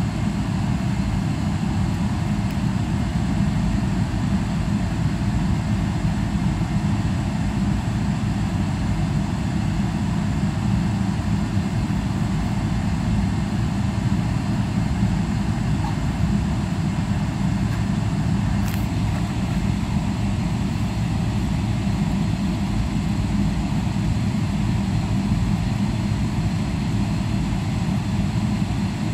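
Steady cabin noise inside a Boeing 777-300ER at low power: a low, even rumble from its GE90 engines, with cabin air hiss above it and no spool-up.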